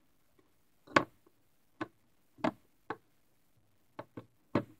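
About seven short, irregular taps from hands pressing and patting Play-Doh flat on a wooden tabletop.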